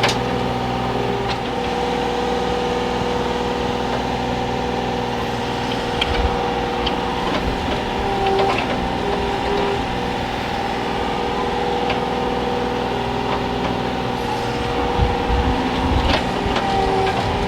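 Komatsu PC35 mini-excavator's diesel engine running steadily, with a few short knocks now and then.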